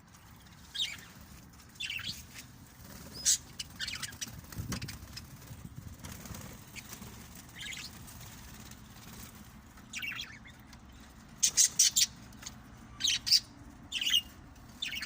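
Small cage birds chirping in short, scattered calls, with bouts of wings fluttering; the calls come thickest near the end.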